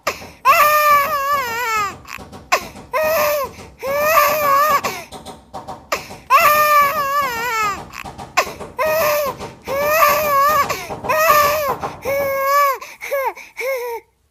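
A baby crying hard: a long run of high-pitched wails, each about a second long, rising and falling in pitch, with short breaks for breath between them.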